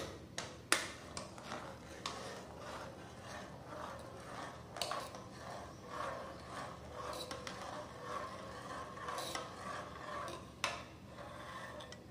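A metal spoon stirring milk in an aluminium saucepan, scraping against the pan in a steady run of strokes. There are a few sharp clinks near the start and another near the end.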